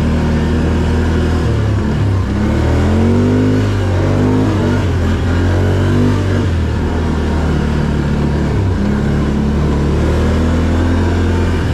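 Can-Am Outlander quad's engine running under throttle while being ridden: revs rise about two seconds in, ease back around five seconds, then hold steady with a brief dip near nine seconds.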